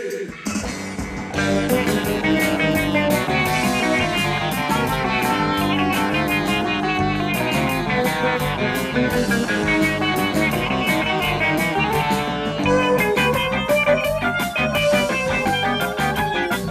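A live rock band playing: electric guitars over bass and drums with a steady beat, the full band coming in about a second in.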